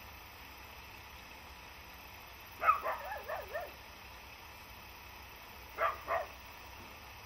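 An animal calling: a quick run of short wavering yelps a little under three seconds in, then two short calls near the end, over a faint steady low hum.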